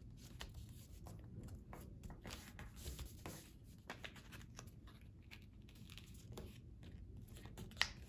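A square sheet of paper being folded and creased by hand, the two sides folded in to the diagonal for a paper crane: faint, scattered rustles and crinkles as the paper is pressed flat, with one sharper snap near the end.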